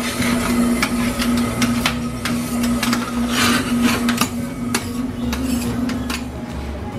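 Indoor room noise: a steady low hum with irregular clicks and light clatter scattered through it.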